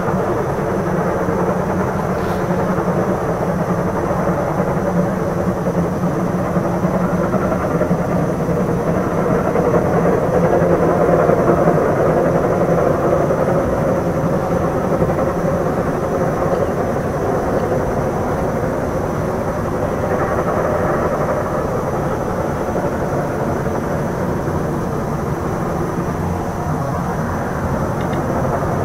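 A train running, a steady loud rumble that swells slightly partway through.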